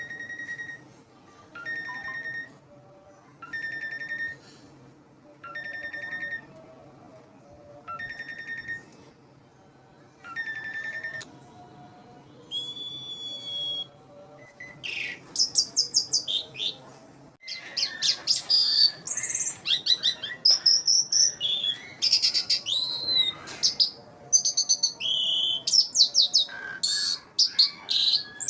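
Asian pied starling (jalak suren) singing: at first a buzzy note repeated about every two seconds, then, from about halfway, a louder, fast, varied song of whistles and rising and falling notes.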